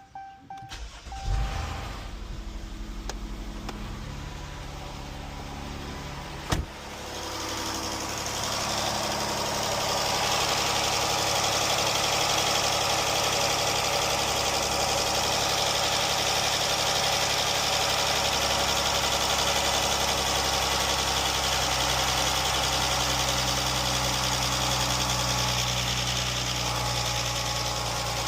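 Jeep engine cranking and catching about a second in, then settling into a steady idle that grows louder after a sharp click at about six and a half seconds. This is its first start-up after new rocker arms and lifters were fitted to cure a lifter tick.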